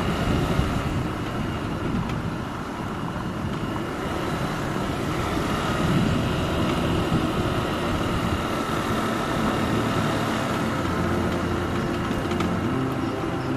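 A motorbike running steadily at low speed, heard from the rider's seat, with the hiss of wind and road noise.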